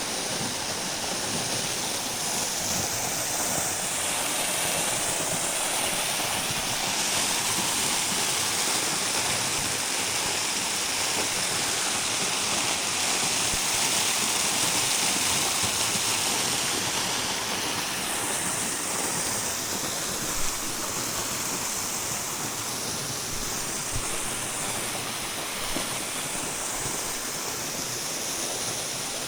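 Waterfall: the steady rush of falling water, swelling a little in the middle, with a few faint taps in the last third.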